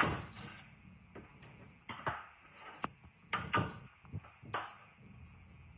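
Metal clanks and knocks: one loud ringing strike at the start, then about six more at an irregular pace, each ringing briefly, as metal parts are struck or handled.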